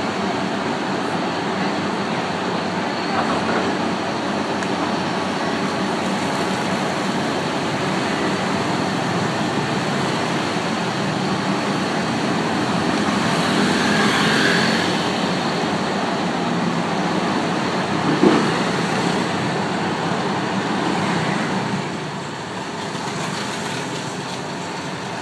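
Steady street traffic and engine noise. One vehicle swells past about halfway through, a short sharp knock comes a few seconds later, and the noise drops somewhat near the end.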